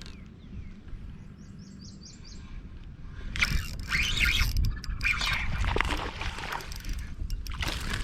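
A bird calls in a quick run of about eight short, high chirps. About three seconds in, louder irregular noisy sounds take over.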